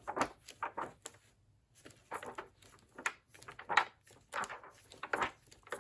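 Paper pages of a vintage hardcover book being turned and handled: an irregular string of short rustles and flaps, the loudest just before four seconds in.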